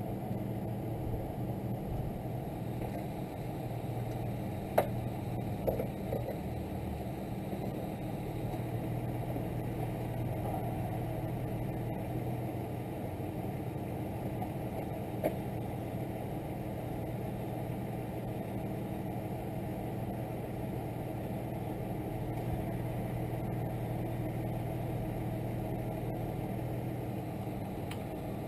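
A vehicle engine idling steadily, with a sharp click about five seconds in and another about fifteen seconds in.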